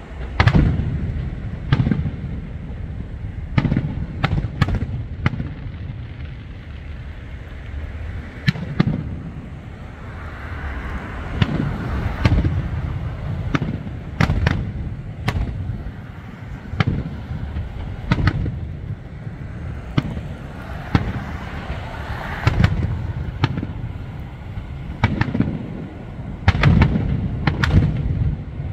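Aerial fireworks shells bursting overhead in a steady barrage, a string of sharp booms a second or so apart, with quick clusters of bangs just after the start and again near the end.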